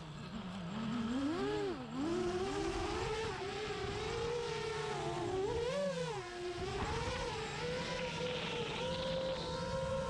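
Motors of a 6-inch FPV quadcopter whining, the pitch swooping up and down repeatedly with throttle changes, then holding a steady, slightly rising pitch for the last couple of seconds.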